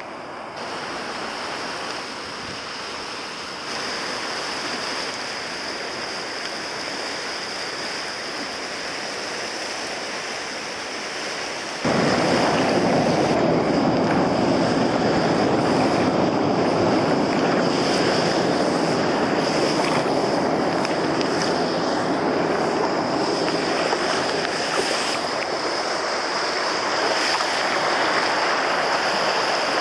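Rushing, breaking river water churning around an open canoe as it plays on a standing wave, a steady noisy wash. It jumps suddenly louder about twelve seconds in and stays loud.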